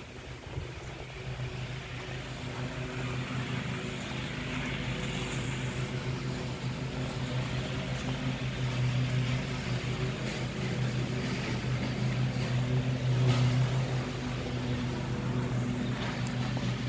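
A steady low motor hum with a pitched overtone, growing slightly louder as it goes, with a few light ticks near the end.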